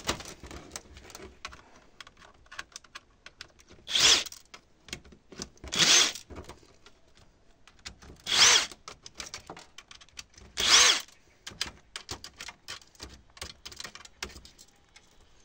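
Cordless drill-driver spinning up in four short bursts, each a brief whine, as it backs screws out of an LCD monitor panel's metal frame. Light clicks and taps of metal being handled come between the bursts.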